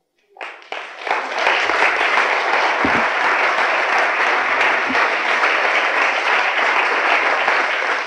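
Audience applauding, rising over the first second and then holding steady.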